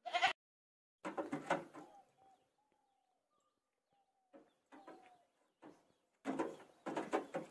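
A goat's hooves scraping and knocking on a tractor's metal bodywork in irregular spells, loudest near the end, with faint bird calls in the quiet gaps.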